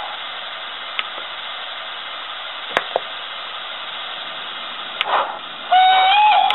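ESU LokSound V4 sound decoder in a Hornby Clan Class model steam locomotive, heard through the small speaker in its tender: a steady steam hiss with a few sharp clicks, then near the end a loud whistle blast that slides up slightly in pitch.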